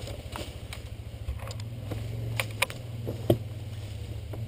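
ATV engine idling steadily, with a few sharp clicks and knocks about halfway through.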